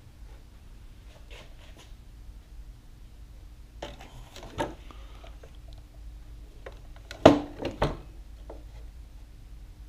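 A plywood board being shifted and set down on a miter saw's metal table: a few light knocks and rubs about four seconds in, then two sharp knocks about half a second apart near seven seconds in. A steady low hum runs underneath.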